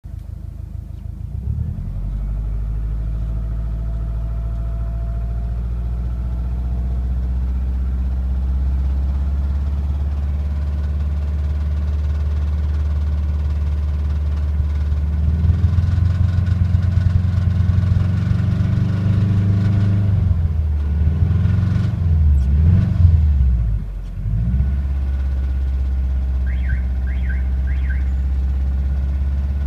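Subaru Impreza WRX's EJ205 turbocharged flat-four running with the knock its owner is demonstrating. It idles, picks up revs after the halfway point, is blipped several times and drops back to idle.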